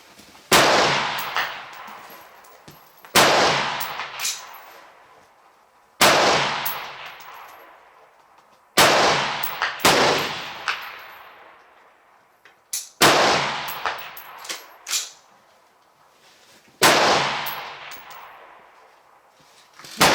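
Rifle shots fired one at a time: about eight shots a few seconds apart, each sharp report trailing a long echo.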